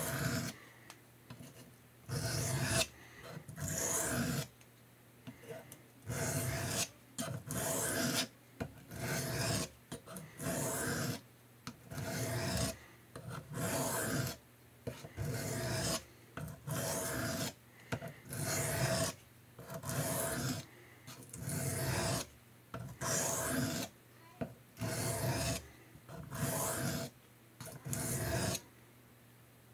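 Knife blade drawn across a diamond sharpening plate in repeated strokes, each a short rasping scrape, about one a second.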